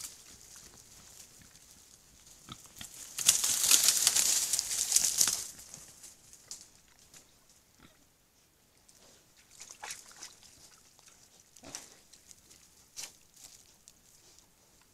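Wild boar calling: a loud, harsh burst of about two seconds a few seconds in, followed by a few short, sharp calls later on.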